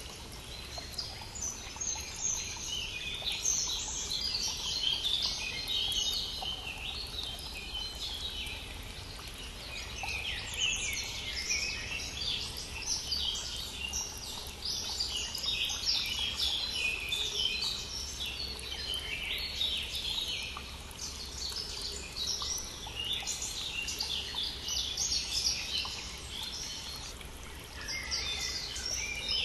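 A dawn chorus of many songbirds singing at once, overlapping chirps and trills, over the steady low rush of a flowing brook. The singing thins briefly near the end.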